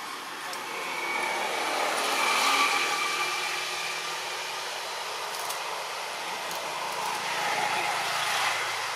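A motor vehicle passing by, its noise rising to a peak a couple of seconds in and fading, then swelling again near the end.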